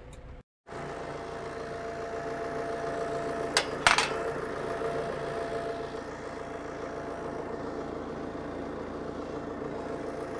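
New Holland T5.140 tractor's diesel engine idling steadily. About three and a half seconds in there are two sharp metallic clacks in quick succession from the front loader's quick-attach locking lever, which is being worked by hand to lock a bale spike onto the loader.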